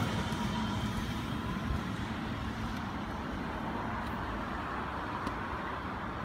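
An electric commuter train pulls away and recedes down the line. Its rumble fades over the first second, leaving a steady, quieter hum of the distant train and surrounding traffic.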